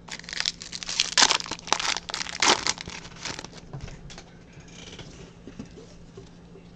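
Trading card pack wrapper crinkling and tearing as it is opened, a dense crackling for about three and a half seconds, then a few faint rustles.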